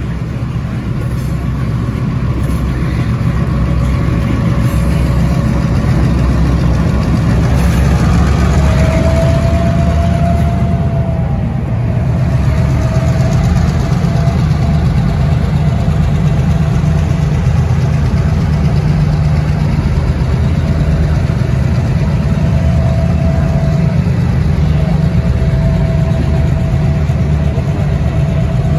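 Several end-cab diesel switcher locomotives rumbling as they roll past close by, their engines growing louder over the first few seconds and then holding steady. A thin, high whine comes and goes over it from about eight seconds in.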